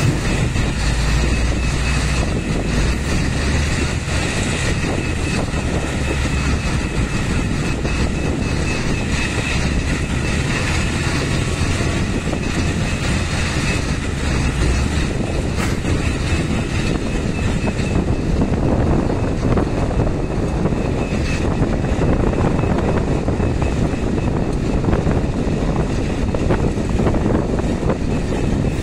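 Wheel loader's diesel engine running steadily under load while it loads a dump truck, with soil and rock pouring from its bucket into the truck's steel bed at the start and again near the end.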